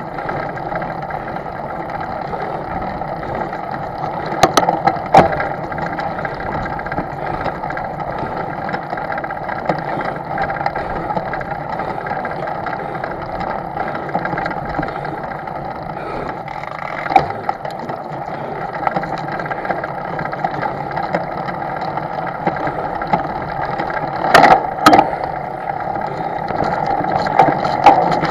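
Steady noise of a boat under way, with five sharp knocks: two about four to five seconds in, one at around seventeen seconds, and two close together near the end.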